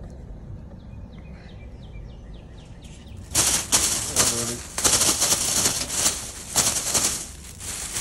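Thin plastic trash bag crinkling and rustling in loud bursts, starting about three seconds in, as a trapped robin struggles inside it and a hand works at the bag.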